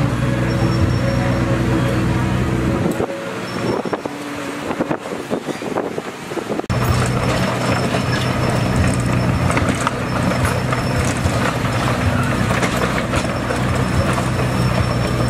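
Heavy diesel engine of earthmoving machinery running steadily under load. About three seconds in the engine drone drops away for a few seconds, leaving clattering and knocking, then returns abruptly.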